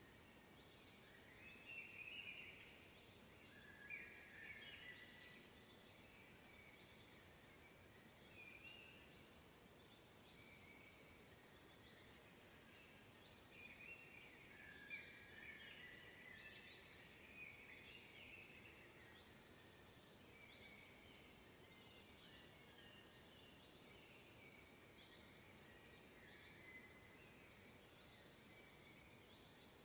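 Faint spring woodland birdsong: several birds chirping and warbling, with a very high, thin note repeating roughly once a second.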